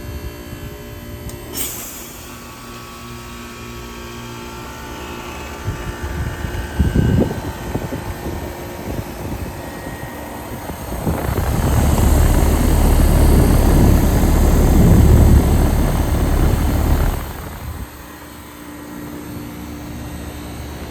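1999 Carrier Cube heat pump with its droning Copeland compressor running through a defrost cycle: a steady hum, a sharp click about a second and a half in, a brief rough burst around seven seconds, then a loud rushing noise for about six seconds that cuts off, leaving the hum again.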